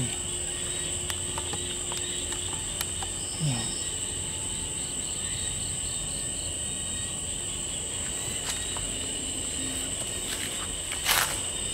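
Crickets and other night insects chirping in a steady high-pitched chorus, with a few faint clicks and a short rustle near the end.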